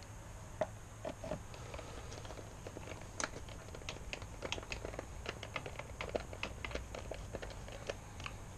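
Irregular small clicks, taps and light knocks of hands and tools handling motorcycle parts, over a steady low hum.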